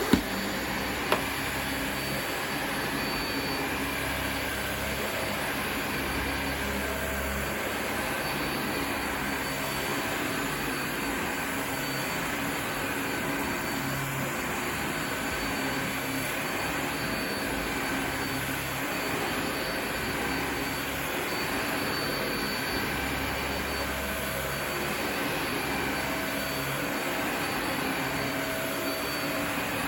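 Vacuum cleaner running steadily while it hoovers up Shake n' Vac carpet powder. There are two sharp clicks in the first second or so.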